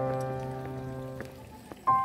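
Background piano music: a held chord fading away, with new notes striking near the end.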